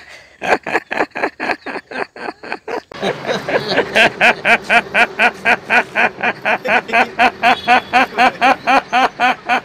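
A man imitating a duck's quacking with his voice: a long, even run of short quacks, about four to five a second, getting louder about three seconds in.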